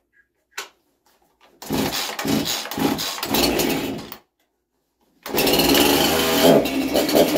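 Two-stroke chainsaw being started: it catches and runs unevenly for about two and a half seconds, then stalls. About a second later it is started again and keeps running, its engine speed changing a little over a second later.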